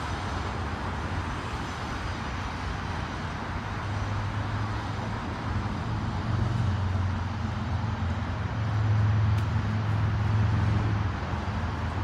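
Road traffic hum with a low rumble that swells through the middle and latter part, as of a heavier vehicle passing, then eases near the end.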